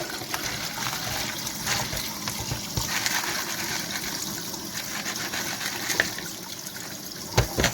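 Hot water running steadily from a tap onto frozen peas to thaw them, with a sharp knock near the end.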